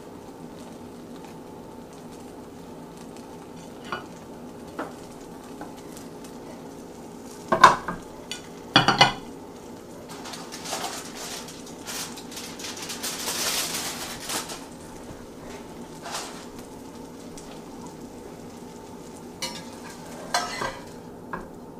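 Cooking sounds at a stovetop: a faint steady sizzle from the frying pan, two loud clatters about a third of the way in as a plate and pan are moved on the stove grates, then a swell of crinkling as the aluminium foil cover comes off the pan, and a few light metal scrapes of a spatula in the pan near the end.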